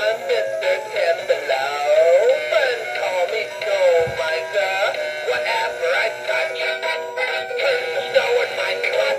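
Gemmy Mini Blue animatronic playing its song through its small built-in speaker: a male singing voice over a Christmas-style backing track, thin with no bass.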